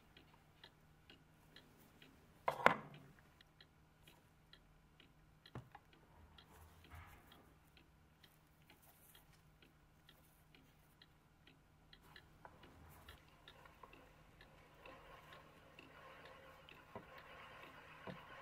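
A clock ticking about twice a second under a steady low hum, with one sharp knock about two and a half seconds in. From about twelve seconds on, a faint scraping rises as a small brass washer is worked on a lathe.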